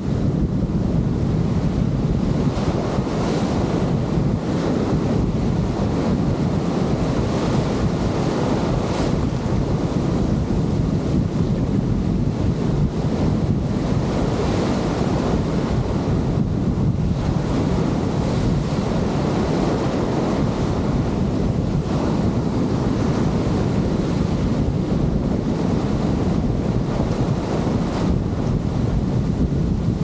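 Breaking surf and foaming wash in shallow sea water, with strong wind buffeting the microphone as a heavy low rumble underneath.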